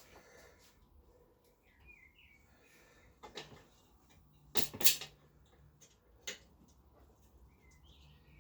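A few sharp clicks and knocks of parts and tools being handled during bench work, the loudest pair about halfway through, with faint chirps now and then.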